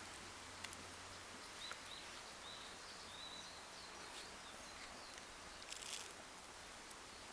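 Quiet outdoor ambience: a steady faint hiss with a few small clicks and a brief rustle near the end, and faint short bird chirps in the middle.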